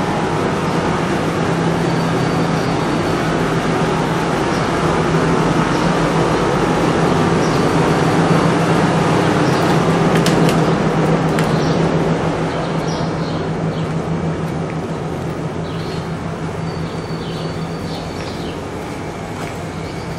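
Steady low rumble and hum of city background noise, growing a little louder, then easing off from about halfway through. Short, high chirps, like small birds, come in over it in the second half.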